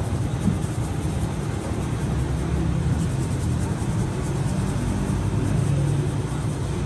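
Steady low rumble of running bakery machinery, with a constant hum.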